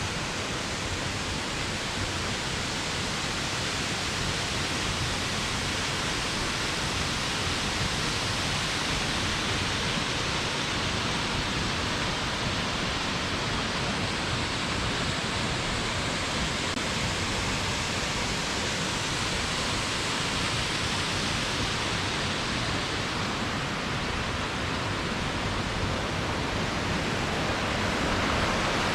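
Waterfall rushing: a steady, even noise of falling water that grows a little louder near the end.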